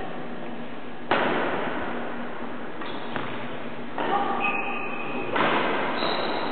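Badminton rackets striking shuttlecocks, a sharp hit about a second in and further hits near three, four and five seconds, each ringing on in the echo of a large sports hall.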